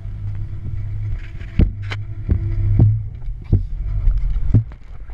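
Steady low motor hum, the winch hauling a bungee jumper back up on the cord, with irregular knocks and rubs on the body-worn camera.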